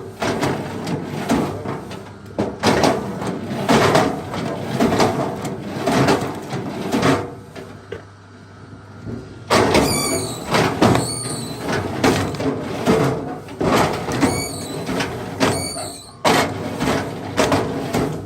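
Repeated strokes of a hand tool working a large log, about one or two a second, with a short pause midway and a few brief high squeaks.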